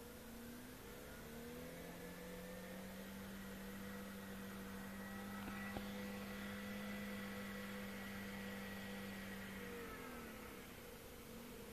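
Mercury 7.5 hp twin-cylinder two-stroke outboard running in a test barrel after a water pump and gasket change. Its speed rises about a second in, holds steady, drops near the end, then picks up again.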